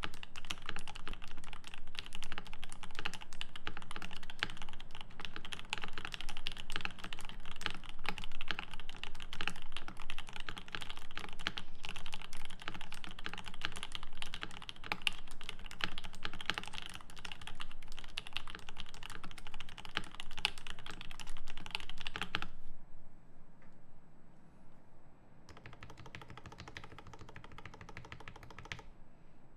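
Typing on a Rama M65-B mechanical keyboard with lubed Alpaca V2 linear switches in a brass plate under GMK keycaps: a fast, continuous run of keystrokes. About 22 seconds in it falls much quieter and stays faint for the rest.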